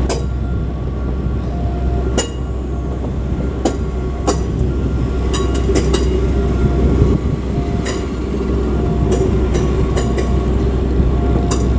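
Heavy machinery running with a steady low hum, with many sharp metallic clanks that ring on and a short beep repeating every few seconds, typical of rail-vehicle handling or dismantling work on a Shinkansen car.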